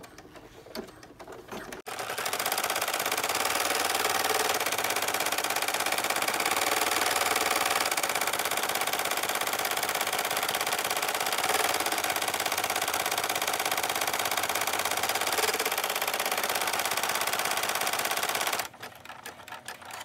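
Single-needle embroidery machine stitching the tack-down row of an appliqué, a fast, steady clatter that starts suddenly about two seconds in and cuts off just before the end. The stitching is played sped up.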